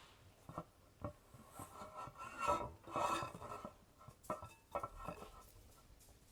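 Short, irregular scraping and rubbing sounds of food preparation, with a few light knocks.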